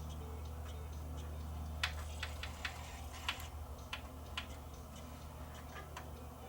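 Old Panasonic CD player's linear-motor pickup mechanism clicking and ticking irregularly as it seeks and fails to read the CD-R beyond track 2, over a low hum that fades about a third of the way in.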